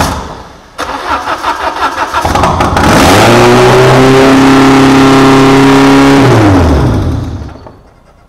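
Peugeot XU9J4 1.9-litre 16-valve four-cylinder, with no exhaust fitted, cranking on the starter and catching about two seconds in. It races up to a steady, really high idle for a few seconds, then falls in pitch and stops near the end.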